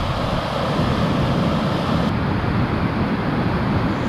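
Rushing water at a hydro-electric outflow: white water pouring from the turbine outlet into the river, a steady noise with no let-up. About halfway through the highest hiss dips slightly.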